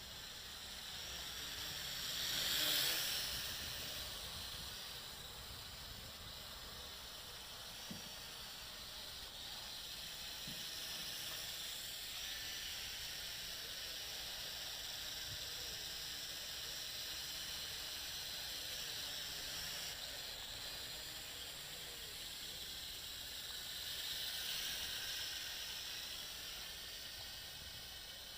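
Small JXD 509 toy quadcopter's propellers whirring in flight, the pitch wavering as the motors speed up and slow down. It is loudest about three seconds in and swells again near the end.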